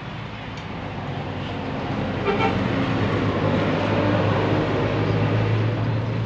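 A large bus approaching, its engine growing steadily louder, with brief horn tones.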